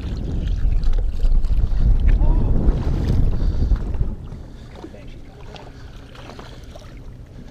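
Wind rumbling on the microphone, loud for about the first four seconds and then dropping away to a lower rumble.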